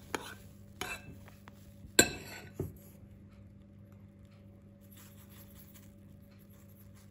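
Metal spoon clinking against a glazed bowl of beaten eggs and shredded zucchini: a few light clinks in the first second, a sharp clink about two seconds in and one more soon after. After that only a faint steady hum remains.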